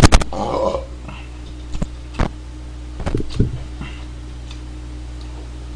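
Tableware clatter: a loud burst of clicks right at the start, then a few single sharp clicks of chopsticks and a spoon against ceramic plates and bowls during a meal, over a steady low hum.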